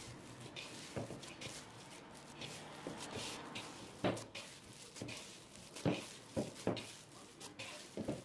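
Hands kneading a soft dough in a wooden bowl: irregular soft thumps and squishes as the dough is pressed and folded against the bowl, with light rustling of flour and dough between them. The loudest thumps come about four and six seconds in.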